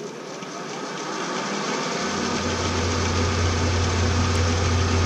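Bridgeport milling machine spinning a fly cutter in low gear at about 135 rpm, its tool bit set far out. The machine builds up over the first two seconds, then settles into a steady low hum.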